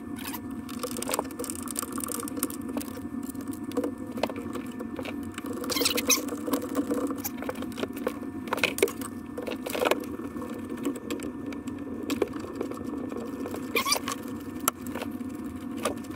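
Hands and a screwdriver fitting a metal-cased computer unit into its mounting: scratchy scraping and rustling with several sharp clicks of metal on metal, over a steady hum.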